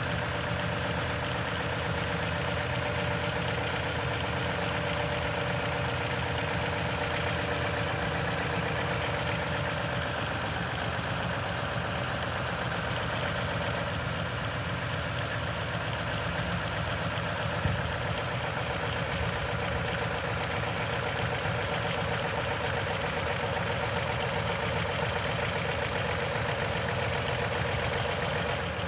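2010 Toyota Tundra engine idling steadily with a fast, even rattling tick, which the owner takes for timing chain noise.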